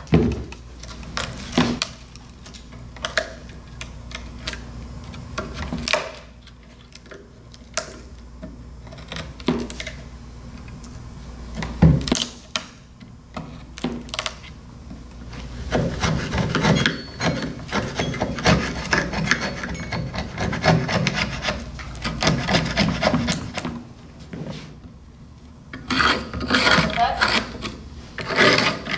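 Old cane and dried glue being scraped and pried out of the groove of a bamboo chair-back frame with a screwdriver, and old strips pulled free. The scraping comes in irregular bursts with scattered clicks and one sharp knock about twelve seconds in.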